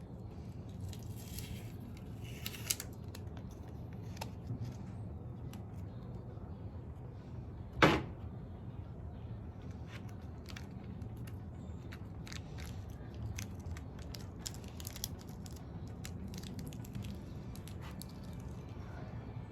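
Scattered faint clicks and crackles of hands working at a surfboard repair, with one sharp, much louder click about eight seconds in, over a low steady hum.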